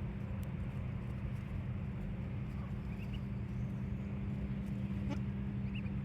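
Ducklings peeping in a few short, high, rising chirps, about halfway through and again near the end, over a steady low hum.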